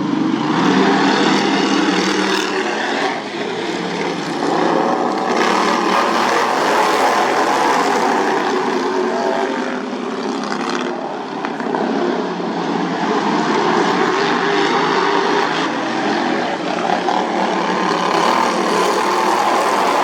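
Racing riding lawn mower engines running hard at high revs, a continuous buzzing drone that swells and fades every few seconds as the mowers go by.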